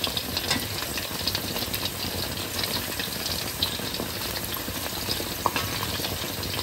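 Panko-breaded chicken tenders deep-frying in hot oil in a stainless steel wok, nearly cooked through: a steady sizzle with fine crackling and a few faint clicks.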